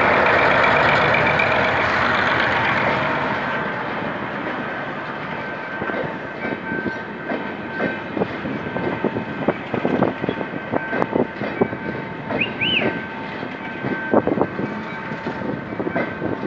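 A GM G22W diesel-electric locomotive pulls a passenger train away from a standstill, its engine loud as it passes and then fading over the first few seconds. The coaches then roll by with irregular clicking and clacking of their wheels on the rails.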